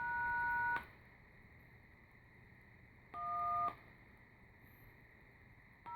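Tone generator sounding three short two-tone telephone-keypad (DTMF) beeps, each a different tone pair: one near the start, one about three seconds in, and one at the very end, each under a second long.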